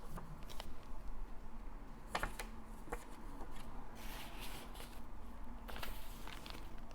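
Pages of a handmade junk journal being turned and handled: paper rustling, with a few short sharp crisp snaps and taps, the crispest a little after two seconds in.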